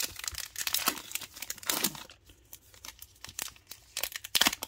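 A 2022 Donruss baseball card pack's foil wrapper being torn open at the top and crinkled by hand: sharp crackling, busiest in the first two seconds and again near the end.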